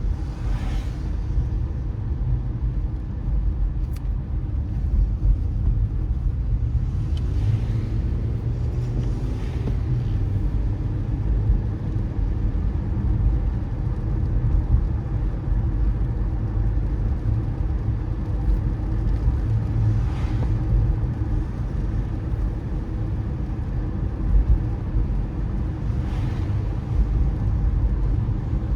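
Car driving on a wet road: a steady low rumble of engine and tyres, with a few brief swishes of water spray spread through it.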